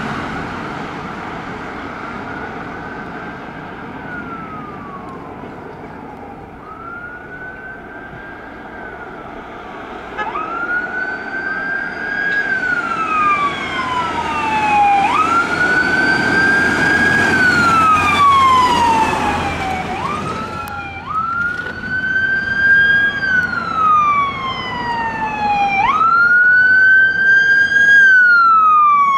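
Wailing sirens of fire service emergency vehicles approaching, each cycle rising quickly and falling slowly over a few seconds. It starts faint and grows louder. A second siren overlaps in the middle, and the wail speeds up near the end, over a low rumble of engines and traffic.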